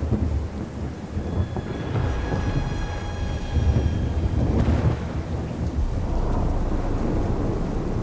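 Thunderstorm: thunder rumbling low and continuously over steady rain, with a few faint high held tones in the middle.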